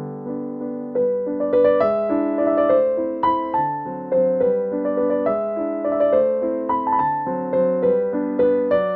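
Background piano music: a gentle melody of struck notes that ring and fade at an even, unhurried pace.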